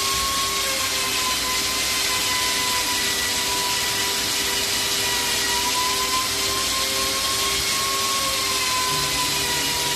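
AKM1325 CNC router running: a steady spindle whine over a constant hiss, with a higher tone that drifts slightly up and down.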